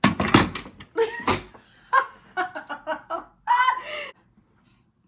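A woman laughing in exasperation: breathy bursts, then a run of short, quick laughs, and a longer drawn-out voiced sound about three and a half seconds in.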